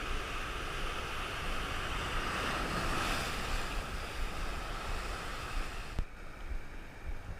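Rough sea surf: waves surging and breaking, with wind rumbling on the microphone. The surf swells to its loudest about three seconds in and drops off abruptly about six seconds in.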